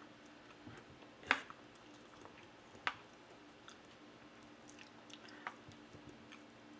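Knife and fork clicking against a bowl while grapefruit segments are cut, with two sharp clicks about a second and a half apart and a softer one later, among faint scraping ticks and quiet chewing.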